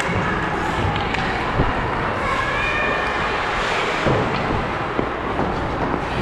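Ice hockey skates scraping and gliding on rink ice under a steady rush of noise, with a couple of sharp knocks, about one and a half and four seconds in, from sticks or the puck.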